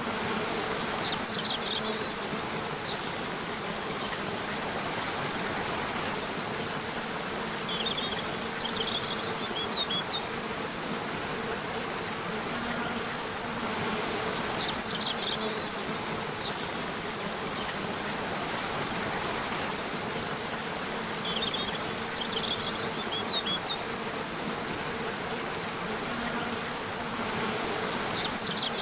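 Nature soundscape of buzzing insects over the steady rushing hiss of flowing water. Short high bird chirps come in brief bursts roughly every six to seven seconds, repeating like a loop.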